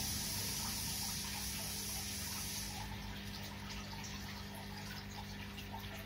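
Aquarium water bubbling and trickling from the air stream and filter, with small scattered pops and a steady low hum. A high hiss drops away about three seconds in.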